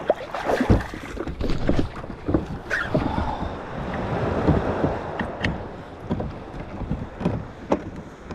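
Water slapping and sloshing around a kayak, with irregular knocks against the hull and wind on the microphone.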